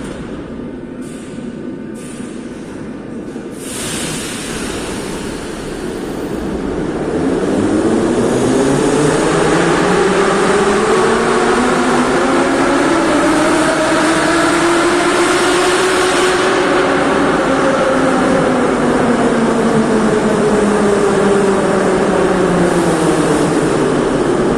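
Moscow metro train in the station: a steady rumble, then from about seven seconds in it gets louder and the motors whine, several tones rising in pitch, holding, and falling again near the end.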